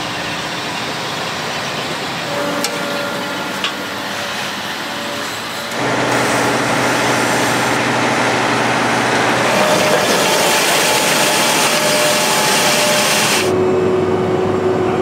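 A vehicle running, with a steady rush of noise. The rush grows louder about six seconds in and drops back near the end, leaving a steady hum.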